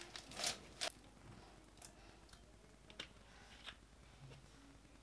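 Plastic cling film rustling in two short bursts within the first second as it is pulled off raw chicken breasts, followed by a few soft, faint clicks and taps.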